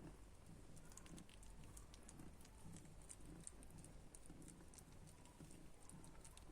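Faint, irregular soft clicks and patter from the mother cat and her kittens, over a low steady hum.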